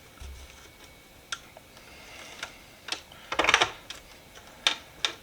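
Tape being picked and peeled off a painted metal toolbox: scattered small clicks, with a short crackling tear about three and a half seconds in and a sharp click near the end.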